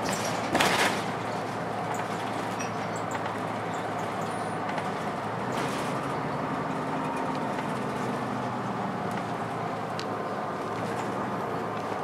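The Cummins ISC diesel of a Blue Bird CS 40 ft transit bus running steadily, heard from inside the passenger cabin with road and body noise. A brief loud burst of noise comes about half a second in, and a smaller one near the middle.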